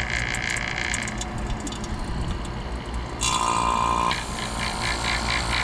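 HVAC vacuum pump running steadily with a low hum while evacuating a freshly installed air-conditioning system. About three seconds in, a steady electronic tone sounds for about a second, then turns into rapid beeping at about four beeps a second.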